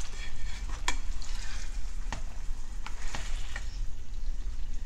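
Triggerfish fillets sizzling in butter and oil in a nonstick frying pan, with a few sharp clicks and scrapes of a slotted spatula against the pan as the fillets are turned.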